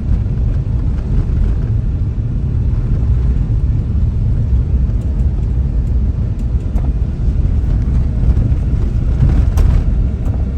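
Car driving over a rough, dusty road under construction, heard from inside the cabin: a steady low rumble of tyres and engine, with a brief knock about nine seconds in.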